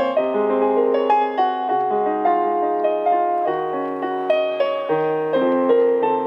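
Keyboard playing a slow song intro: sustained chords with single melody notes changing every half second or so, with no voice yet.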